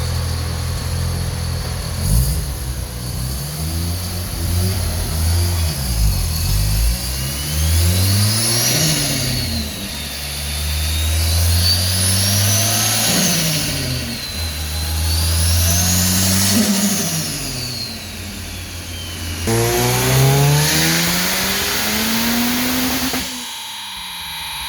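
Turbocharged Mazda FC RX-7 rotary engine revving up and down several times, with a high turbo whistle from its Garrett GTX3582R that rises and falls with each rev. Near the end it makes one longer climb, then drops off suddenly.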